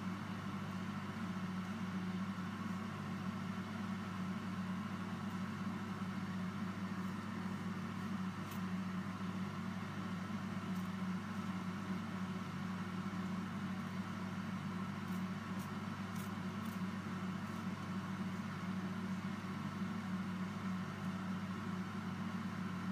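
Electric fan running with a steady hum while acetone is sprayed on an ABS print to vent the vapour, with a few faint short spritzes from a trigger spray bottle about a third of the way in and again past the middle.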